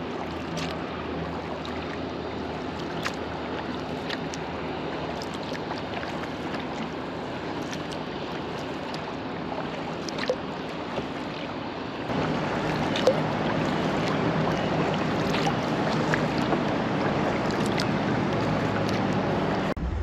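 Water splashing and lapping around a sea kayak being paddled, with a few small clicks and drips. The water noise steps up and gets louder about twelve seconds in.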